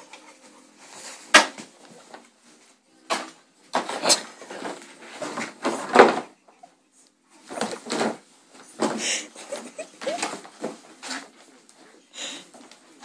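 A dog rummaging and shifting about in its dog bed among a blanket and toys: irregular rustling and shuffling, with a sharp knock about a second in and another about six seconds in.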